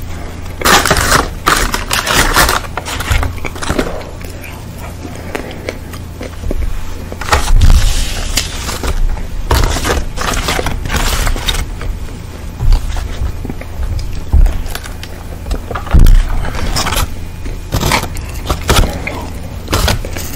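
Close-miked crunching bites and chewing of a crispy breaded fried chicken sandwich, coming in several loud spells, over a steady low hum.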